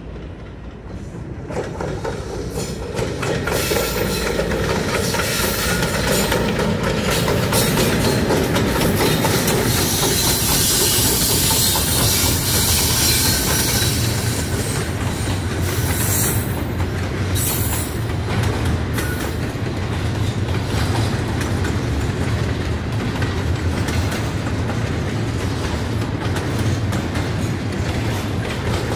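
Norfolk Southern diesel freight locomotives approaching and passing close by, getting louder over the first few seconds, followed by a double-stack intermodal container train rolling past with steady wheel clatter on the rails.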